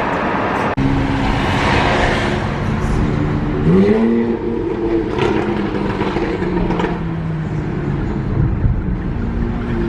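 Car engine running with road noise; the engine note rises about four seconds in as the car accelerates, then holds steady.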